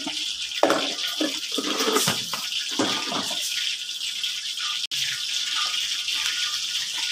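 Flour poured from a plastic jar and a plastic bag into a plastic mixing bowl, with irregular handling knocks and rustles in the first few seconds. A steady hiss runs under it.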